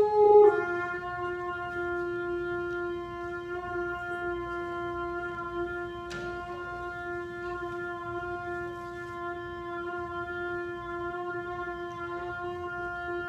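A long, steady shofar blast. The ram's-horn note drops to a lower pitch about half a second in and is then held unbroken.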